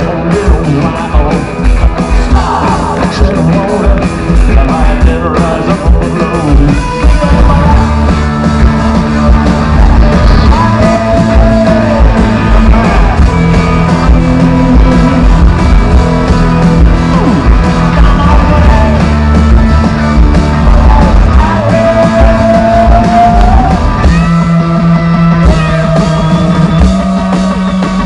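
Live rock band playing loud: electric guitars over a drum kit, with some singing.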